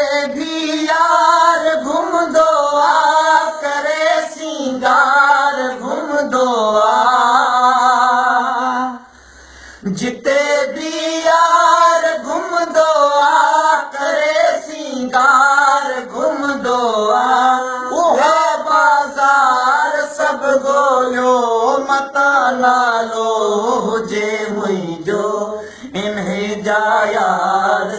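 A man singing a Sindhi song unaccompanied, in a high, wavering melody with long held notes. He breaks off for about a second some nine seconds in.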